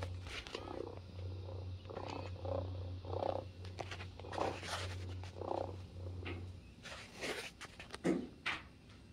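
Robotic toy cat purring: a steady low purr with a pulsing rise and fall that stops about two-thirds of the way through, with small clicks from its moving mechanism. A short louder sound comes near the end.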